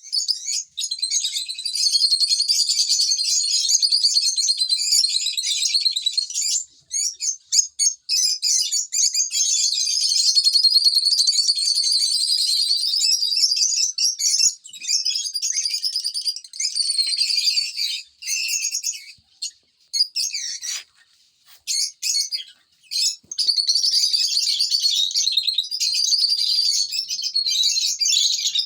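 Small parrots chirping and chattering, high-pitched and nearly without pause, with a few short lulls past the middle.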